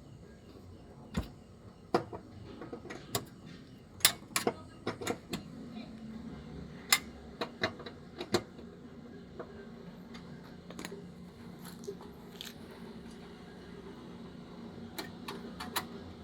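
Irregular sharp clicks and knocks of small hard parts being handled, busiest in the first half, over a faint steady hum.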